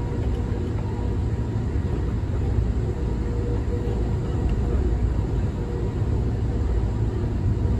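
Steady low rumble inside a moving Amtrak passenger car running at speed, its wheels rolling on the rails, with a faint steady hum over it.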